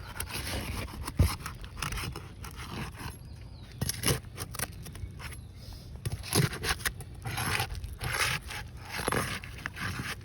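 Roof shingle being pried loose and unsealed from the shingle beneath: irregular scraping and tearing strokes with a few sharp clicks as the seal strip is broken.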